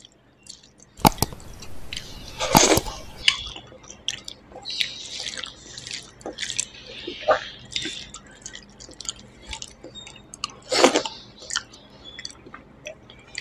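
Close-up sounds of eating by hand: fingers squishing and mixing wet rice and vegetable curry on a steel plate, with chewing. Many small irregular wet clicks, with a few sharper, louder clicks about a second in and again near the end.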